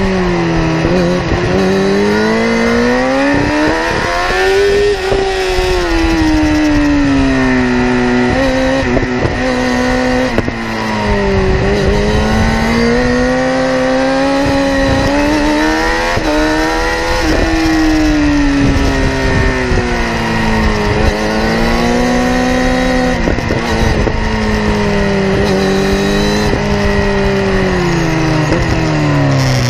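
Kawasaki ZX-10R inline-four engine and exhaust at racing speed, revving up and down several times. The pitch climbs under throttle and drops away under braking, with sudden steps at the gear changes.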